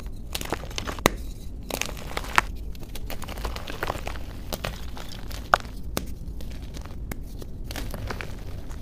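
Soft blocks of plain white gym chalk being snapped and crumbled by hand into loose chalk powder: a string of irregular dry snaps and crunches with soft powdery crumbling between them. The sharpest snaps come about a second in, at about two and a half seconds and at about five and a half seconds.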